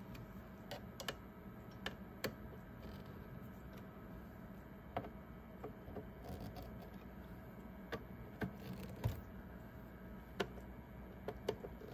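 Light, irregular clicks and taps of a Phillips screwdriver on the small screws of a radio's metal chassis as each screw is checked for snugness, about a dozen over the stretch.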